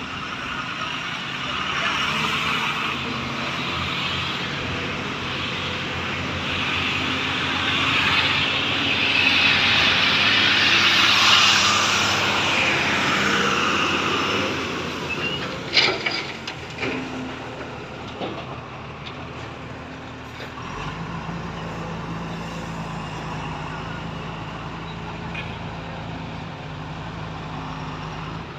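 Heavy diesel machinery at work: a Kobelco 380 excavator loading a dump truck and the trucks' engines running, loud and rising and falling for the first half. A few sharp knocks come about halfway, then a truck engine runs steadily at a low pitch.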